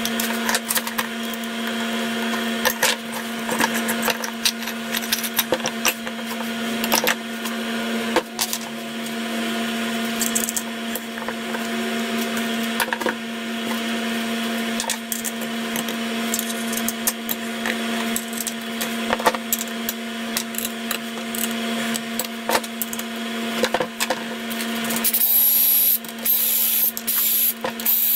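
Metal parts of a hand-assembled hydraulic motor base clinking and tapping as they are fitted together, over a steady hum. About three seconds before the end, a cordless drill starts running in short bursts with a high whine.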